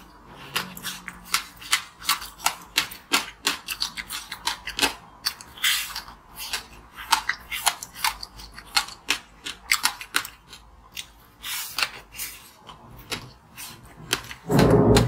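Frozen passion-fruit ice being bitten and chewed close to the microphone: a rapid, irregular run of crisp cracks and crunches, with a louder, deeper crunch near the end.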